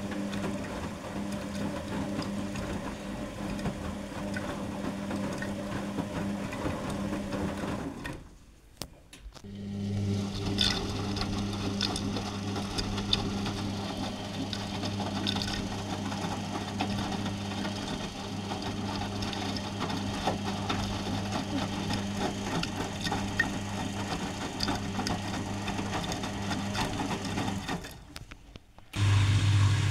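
Arcelik 7103 front-loading washing machine washing a load: the drum motor hums steadily as the drum turns with water and clothes sloshing. It stops for about a second and a half some eight seconds in and again briefly near the end, as the drum reverses direction.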